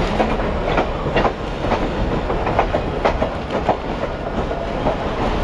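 Passenger train rolling on the rails: a steady rumble with the wheels clacking over rail joints about twice a second.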